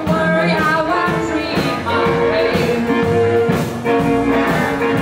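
Live band playing: electric guitar, acoustic guitar, upright bass and drums, with a woman singing.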